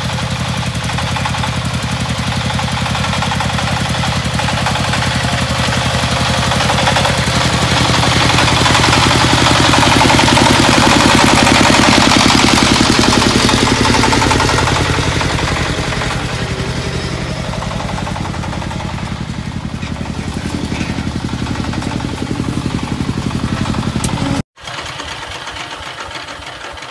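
Single-cylinder diesel engine of a công nông walking tractor running steadily as it hauls a loaded trailer. It grows louder toward the middle, eases off, then cuts off abruptly a couple of seconds before the end, and a quieter engine sound follows.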